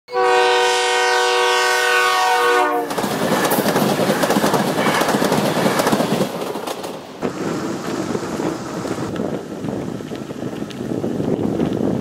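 Electric commuter train sounding its horn, one steady multi-note chord for under three seconds that cuts off sharply, then rushing past close by with loud wheel-on-rail noise and clacking over the track joints.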